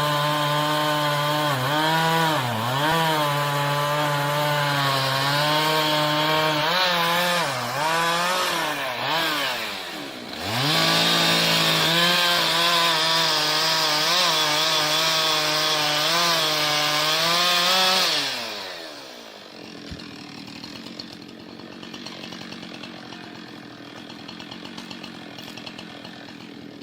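Chainsaw running at high revs while cutting wood, its pitch repeatedly sagging under load and recovering. About ten seconds in the engine briefly drops and revs back up. Near the end it winds down, leaving only a much quieter background.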